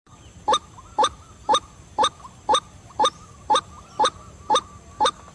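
White-breasted waterhen calling: a short, loud call repeated ten times at an even pace of about two a second, each followed by a fainter note.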